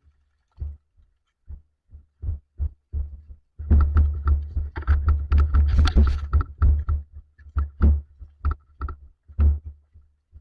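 Irregular deep thumps knocking on the microphone, a few a second, with a dense run of rustling and knocking in the middle: handling or movement noise on a camera carried by a moving player.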